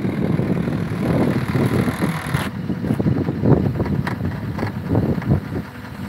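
Strong, gusting wind buffeting the microphone, an uneven rumble that rises and falls.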